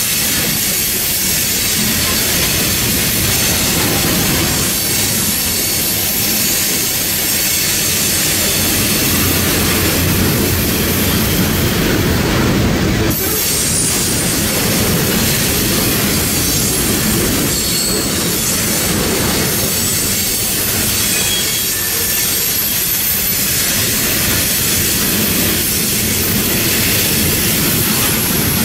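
Loaded iron ore hopper cars of a long freight train rolling past, steel wheels on rails: a steady, loud rumble and rail noise, with thin high-pitched tones coming and going.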